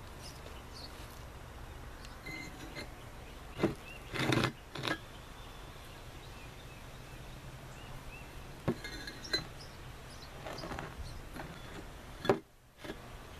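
Fire bricks being slid and set into place on a board, clinking and knocking against one another in a few scattered strikes, with a cluster about four seconds in and the loudest knock near the end.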